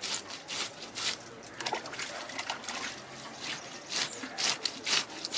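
A knife scraping the scales off a whole fish held on a rough stone, in a run of short rasping strokes, some louder than others and unevenly spaced, slackening for a moment mid-way.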